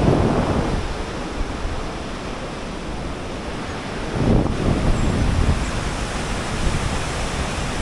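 Wind buffeting the camera microphone over a steady rushing noise, with a strong gust at the start and another about four seconds in.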